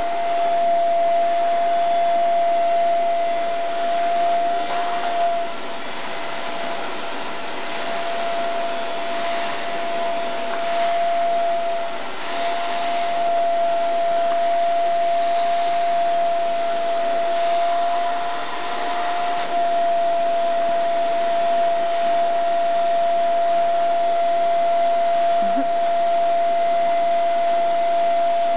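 Vacuum cleaner running steadily with a high whine and a rushing suction noise, its floor nozzle being brushed over a cat's fur; the rushing sound rises and falls as the nozzle moves.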